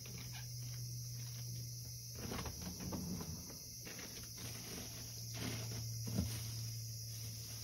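Cicadas singing in a steady, high-pitched chorus, with a low steady hum beneath and a few soft knocks and rustles from household activity.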